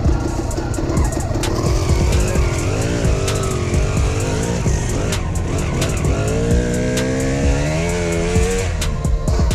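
KTM dirt bike engine under way, its pitch rising and falling with the throttle, climbing for a couple of seconds before easing off near the end, with frequent knocks and clicks from the bike over the rough dirt trail.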